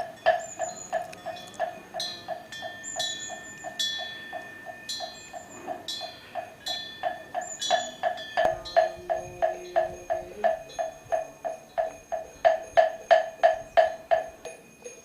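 Buddhist moktak (wooden fish temple block) struck in a steady, fast, even rhythm, about three and a half hollow knocks a second, the usual beat kept for monks' chanting.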